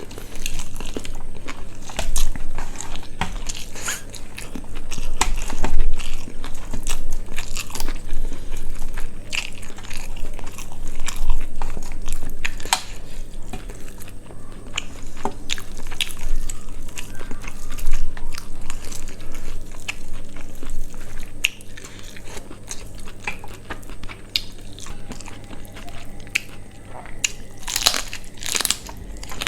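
Close-miked eating sounds: a person chewing and biting quail curry with rice, with many quick wet clicks and crunches throughout.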